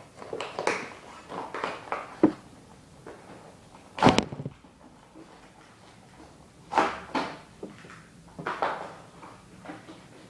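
Plastic toy packaging being handled and opened: irregular crinkling and knocks, with a sharp crack about four seconds in.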